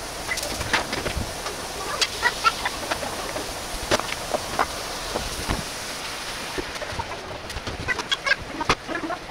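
Ground meat sizzling in a frying pan with scattered pops, and the clicks and scrapes of a wooden spatula stirring it as liquid is poured in. The sizzle thins about two-thirds of the way through, leaving scattered clicks.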